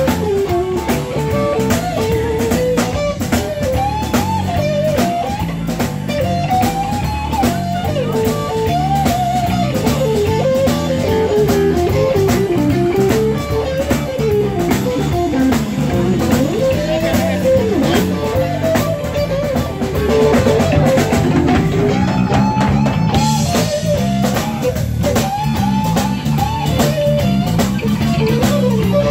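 Live blues band playing: electric guitar, bass guitar and drum kit, with a lead melody that bends up and down in pitch over a steady beat.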